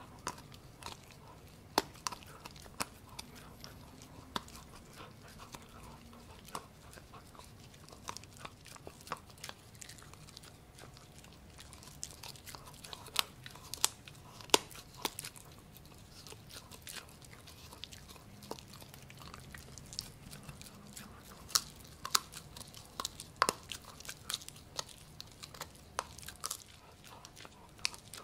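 A Pomsky puppy (husky–Pomeranian cross) chewing and gnawing on a piece of pork, heard close up: irregular crisp crunches and clicks of teeth on the food. The crunches come more often in the second half.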